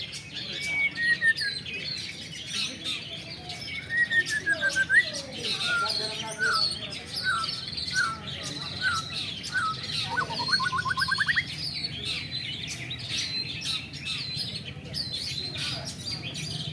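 Several caged long-tailed shrikes (cendet) singing at once, a dense chatter of overlapping chirps and whistles. Near the middle one bird gives a run of short falling whistled notes, followed by a quick rising trill about ten seconds in.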